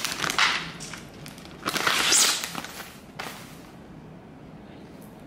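Kitchen handling noises: a few short bursts of rustling and crinkling, the loudest about two seconds in, as food is set out for a charcuterie board.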